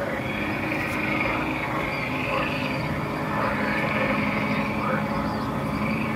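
Lord Raven animatronic Halloween prop running, with a steady motor hum under its recorded creature sounds, which rise and fall about once a second.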